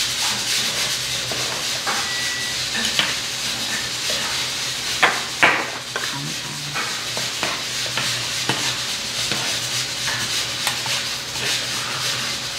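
Metal spoons stirring and scraping in steaming soup in earthenware ttukbaegi pots, with scattered clinks against the pots. The two loudest clinks come about five seconds in. A steady hiss runs beneath.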